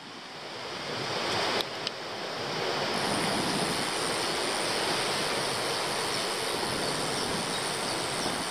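Steady rushing wind noise on the microphone of a camera riding on a moving e-bike, building over the first couple of seconds and then holding level, with two faint clicks about two seconds in.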